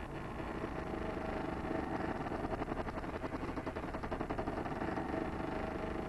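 Drawn-out creaking of a door hinge: a fast, rattling grind that grows louder about two seconds in and eases off near the end.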